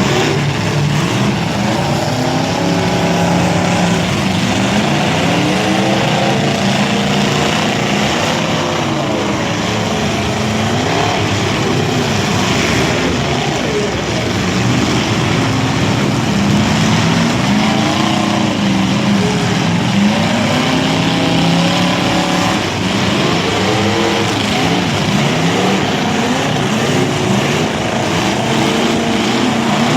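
Several demolition derby cars running at once. Their engines rev up and down over and over under a steady din.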